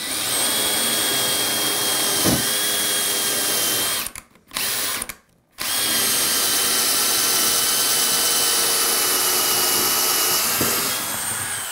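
DeWalt cordless drill turning a glass-and-tile bit through ceramic tile, two layers deep where new tile was laid over old: a steady whine that runs about four seconds, stops briefly with a short blip, then runs again for about six seconds.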